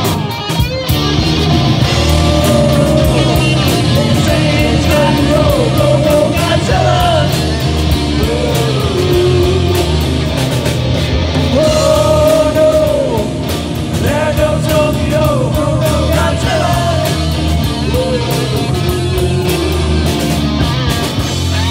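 Live rock band playing: drums, bass and electric guitars with a singer on a melodic line that bends and holds notes.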